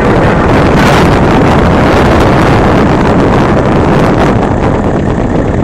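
Holden Commodore VT V8 doing a burnout: the engine is held at high revs with the rear tyres spinning on the pad. It makes a very loud, steady din that overloads the phone microphone.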